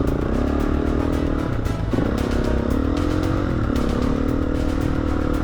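KTM 350 dirt bike's single-cylinder four-stroke engine running under way. Its note rises and dips as the throttle changes, dropping about two seconds in and again about three and a half seconds in.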